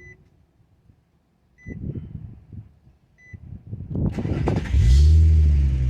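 Warning chime beeping in short groups, then the 2004 Infiniti G35's 3.5 L V6 cranking on the starter and catching about five seconds in. It revs up and settles to a steady idle, a sign the starter circuit is working again after the faulty starter relay.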